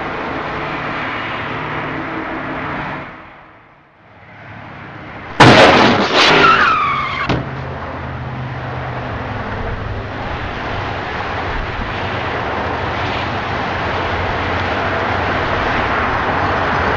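A car crash: a loud sudden impact about five and a half seconds in, then a second hit with a falling screech. Steady road traffic noise dips out briefly before the crash, then runs on, slowly growing louder.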